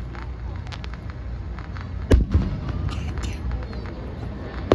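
Aerial fireworks bursting. There is a loud boom about two seconds in and a second boom right after it, then scattered crackles, and another sharp bang near the end.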